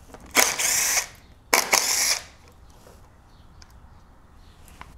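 Cordless power driver run twice in short bursts, each under a second, backing out the screws that hold a GY6 scooter engine's stator pickup coil.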